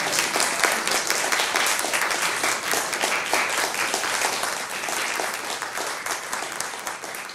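Small audience applauding, a dense patter of hand claps that slowly thins and grows quieter toward the end.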